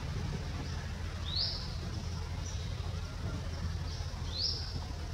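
A bird repeating a short, high, rising chirp, heard twice about three seconds apart over a steady low background rumble.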